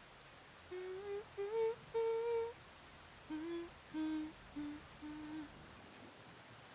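Soft humming of a slow tune to lull someone to sleep: a rising phrase of held notes about a second in, then a lower phrase of shorter notes, with short pauses between.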